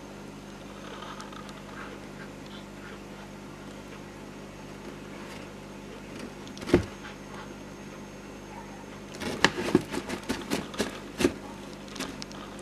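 Savannah monitor taking a piece of raw chicken heart from a hand in a plastic tub: one sharp knock as it snaps at the food, then a quick run of clicks and knocks as it bites, jerks its head and scrabbles on the plastic, over a steady low hum.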